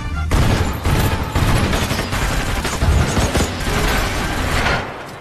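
A long volley of rapid gunfire from several guns firing together. It starts about a third of a second in and dies away near the end.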